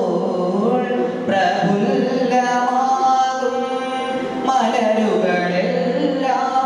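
A young man singing a slow melody into a microphone, holding long notes and gliding between pitches, with brief breaths in between.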